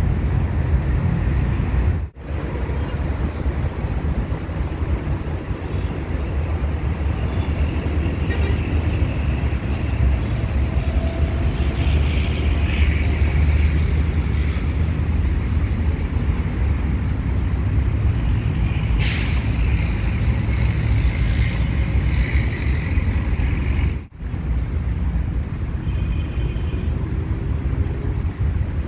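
Steady low outdoor rumble of park background noise, with faint chirps now and then. The sound drops out briefly twice.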